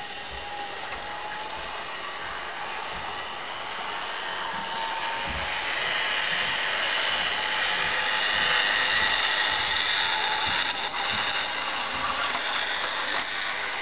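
HO-scale model train running on a loop of Hornby sectional track: a steady motor whine and wheel rumble that grows louder as the train comes closer, loudest a little past the middle.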